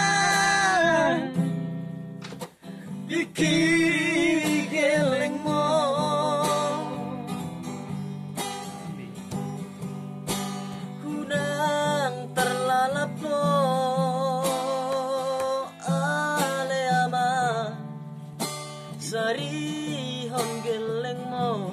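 A man singing a Batak song with a wavering vibrato, accompanying himself by strumming an acoustic guitar. A long held note fades out about a second in, then sung phrases follow over the strumming.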